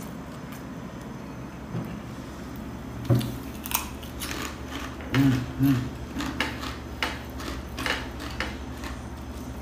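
Crisp pork cracklings (chicharon) being bitten and chewed: a run of sharp crunching cracks from about three seconds in, with two short low hums from the eater partway through.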